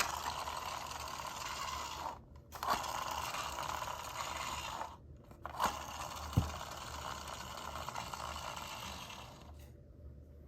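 Toy minicar running along a surface, its wheels and small mechanism giving a steady scraping rolling noise. It comes in three runs with short breaks, each starting with a click, with a knock about six seconds in, and it dies away near the end.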